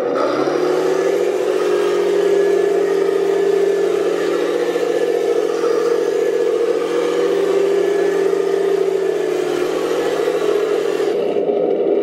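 Remote-control Panther tank model driving, its simulated engine sound rising in pitch as it pulls away, holding steady, then dropping back near the end. Under it run the whir and clatter of the drive gearboxes and tracks, which stop about a second before the end.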